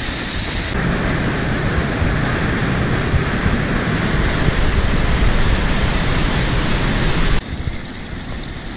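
Whitewater of a waterfall rushing loudly over rock, a steady dense rush. Near the end it drops abruptly to the quieter rush of a small stream running over ledge rock.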